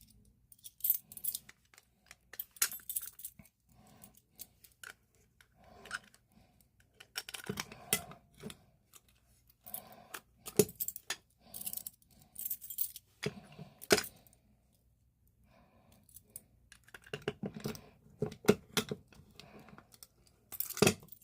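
A bunch of keys jangling on a ring and clicking against metal as keys are tried and turned in a fire alarm pull station's reset lock, with irregular rattles and a few sharper clacks.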